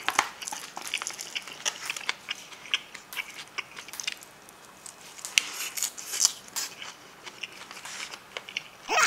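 Chewing a leaf-wrapped mouthful of spicy braised monkfish with bean sprouts: irregular crunching and wet mouth clicks.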